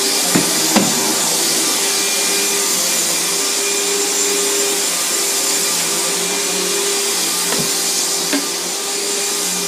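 Riccar 100 bagged vacuum cleaner running steadily with an even motor hum and hiss. A few light knocks come through about half a second in, just under a second in, and again about seven and a half seconds in.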